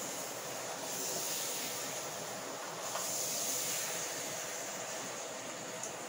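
Chicken cooking in a pot on the stove as it is stirred with a wooden spoon: a steady sizzling hiss that swells about a second in and again around three seconds.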